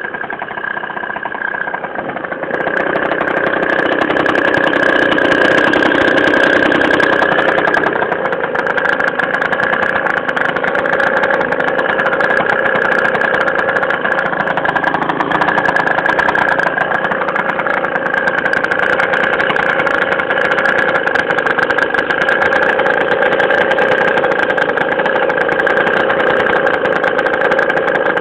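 Piaggio NRG scooter's small two-stroke engine running at idle through a Malossi exhaust with an adapted Yasuni C16 flange, getting louder about two and a half seconds in and then holding steady.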